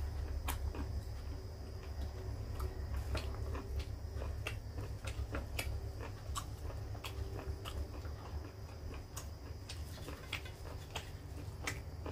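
A person eating rice by hand: scattered short, sharp clicks from chewing and from fingers mixing rice on a steel plate, over a steady low hum.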